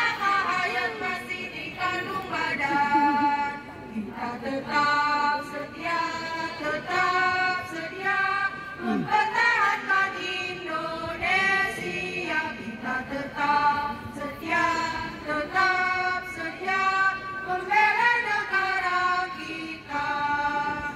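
Women's choir singing an Indonesian national song, in phrases of long held notes with short breaks between them.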